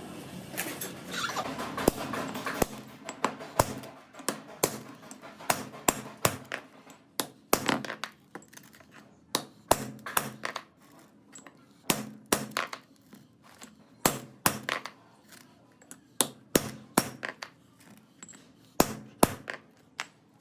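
Hammer blows on metal: a long series of sharp, irregular strikes, often two or three in quick succession with short pauses between.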